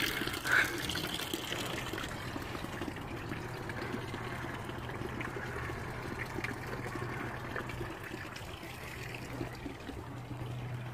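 A thin stream of spring water trickling from a wall spout into a small stone basin, steady and gradually fading away.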